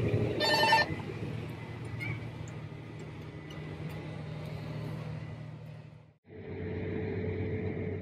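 Farm machine's engine running steadily, with a short electronic beep about half a second in. The hum cuts out abruptly about six seconds in and comes back as a similar steady engine sound.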